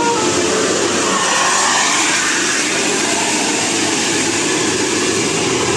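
A bus going past close by: a loud, steady rush of engine and road noise with no horn tune.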